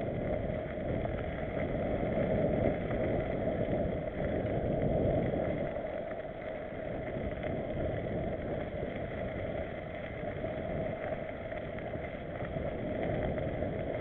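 Mountain bike riding fast on a gravel forest trail: steady wind rush over the camera microphone mixed with the rolling noise of knobby tyres on gravel.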